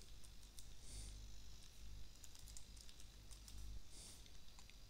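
Faint typing on a computer keyboard: an irregular run of key clicks, over a low hum that stops about four seconds in.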